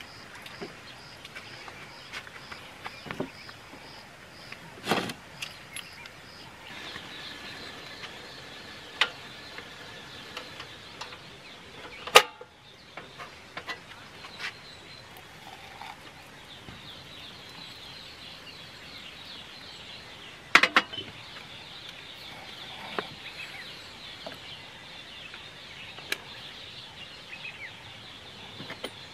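Scattered clinks and sharp knocks of cookware being handled on a wooden camp-kitchen box with a gas burner; the loudest knocks come about twelve seconds in and again around twenty-one seconds. Steady outdoor chirping goes on behind them.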